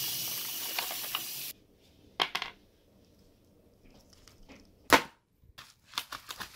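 Parcel packaging being opened by hand: a loud continuous rip of tape or cardboard that stops suddenly in the first second and a half, then scattered knocks and clicks of the box being handled, one louder knock about five seconds in, and a run of crinkling near the end.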